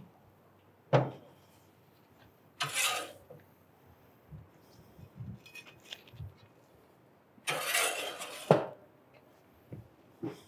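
A metal spatula scraping and clanking on Weber gas grill grates as toasted French bread halves are lifted off and set on a wooden cutting board: two longer scrapes, about three seconds in and again near eight seconds, with sharp knocks and light taps between.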